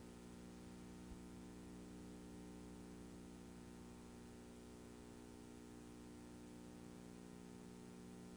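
Near silence: a faint steady electrical hum under a light hiss, as from a blank stretch of videotape, with one faint click about a second in.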